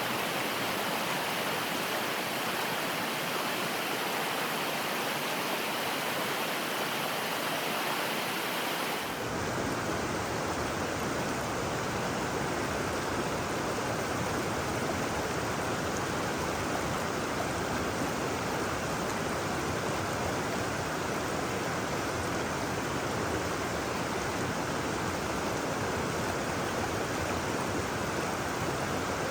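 River water rushing over a rocky shoal, a steady even rush. About nine seconds in, the sound abruptly turns deeper and fuller.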